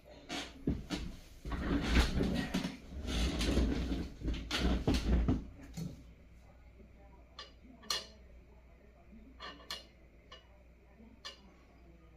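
Rustling and clattering of small parts and tools being handled on a workbench, dense for the first five seconds or so, then a few scattered clicks and taps.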